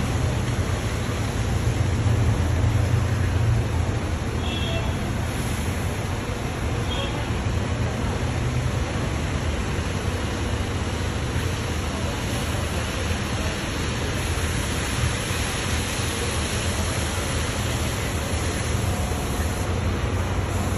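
Bus interchange ambience: a steady low rumble of bus engines running under an even hiss, a little louder a couple of seconds in. Two brief high tones sound about four and a half and seven seconds in.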